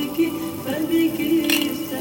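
Background music with held notes, and a short crackle about one and a half seconds in.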